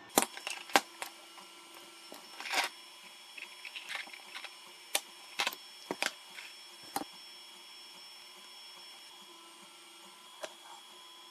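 Scattered light clicks and knocks of small parts and wires being handled and set down on a wooden table. Under them runs the faint steady hum of a 3D printer working in the background.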